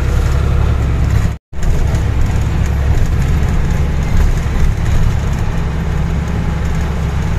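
Truck's diesel engine and tyre noise heard inside the cab while driving on a highway: a steady low hum, with a brief dropout to silence about a second and a half in.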